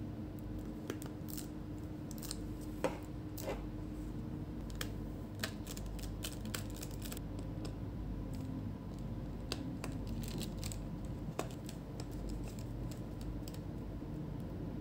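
Scattered small clicks and taps as a replacement battery is fitted into an Asus Zenbook UX303 laptop: its connector is pressed into the motherboard socket, then its screws are driven in with a small screwdriver. The loudest click comes about three seconds in, over a steady low hum.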